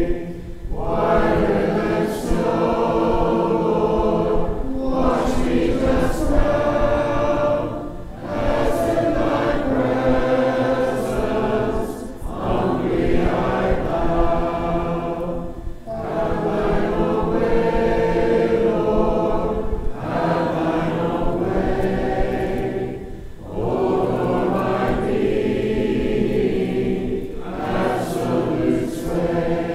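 Church congregation singing a hymn a cappella in parts, many voices together. The hymn is sung phrase by phrase, with short breaks between lines every three to four seconds.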